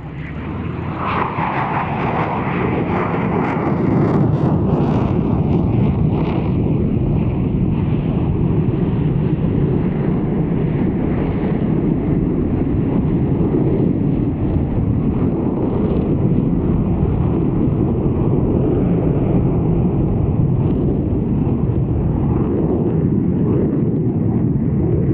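Eurofighter Typhoon jet's twin turbofan engines on a slow, nose-high, high-angle-of-attack pass. A whining note fades over the first few seconds as the noise builds, then settles into a steady, heavy rumble.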